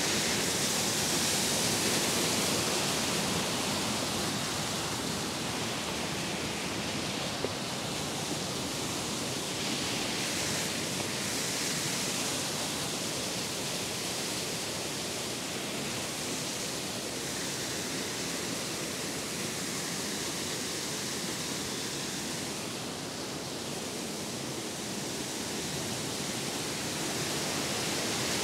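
Steady rush of a small waterfall pouring down a rock chute into a pool: an even, unbroken water noise.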